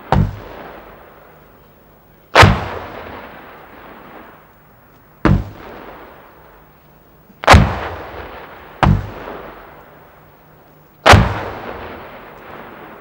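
84 mm HE 441B high-explosive rounds from a Carl-Gustaf M3 recoilless rifle bursting in the air: six sharp blasts at irregular intervals, each followed by a long rumble that dies away.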